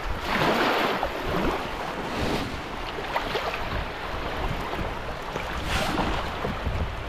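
Small waves washing and splashing around a paddleboard in shallow water at a pebble shore, swelling in a few louder surges, with wind rumbling on the microphone.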